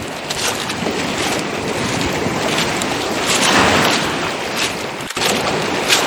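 Footsteps crunching on beach pebbles at a walking pace, over the steady wash of sea waves; a wave swells up about three and a half seconds in.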